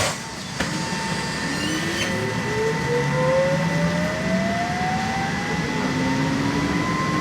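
Trolleybus electric traction drive whining as the bus pulls away from a stop. The whine rises steadily in pitch with speed over a steady high hum. It opens with a brief burst of air hiss that cuts off.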